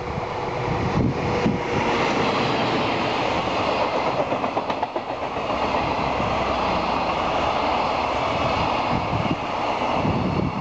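Container freight train hauled by an ED76 electric locomotive passing close by: a loud, steady rumble of wheels on rails that swells in the first second or two, with a repeated clatter of the wagons' wheels over rail joints.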